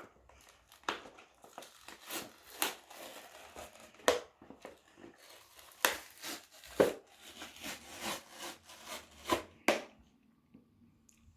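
Toy packaging being handled: irregular rustling, crinkling and sharp clicks as the box and its contents are moved about, falling quiet near the end.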